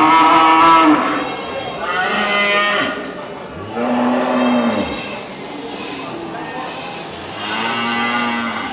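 Cattle mooing repeatedly: about four moos, each around a second long, with the pitch rising and then falling away at the end of each call.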